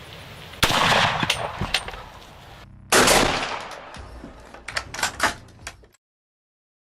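Gunshots: a loud shot about half a second in, followed by a few quicker shots, then another loud shot about three seconds in and a rapid string of shots around the five-second mark. The sound stops abruptly about a second before the end.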